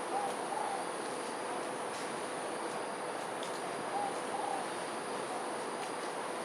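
A bird gives two short pairs of soft notes, one at the start and again about four seconds in. Under them runs a steady rushing hiss and a faint high insect drone.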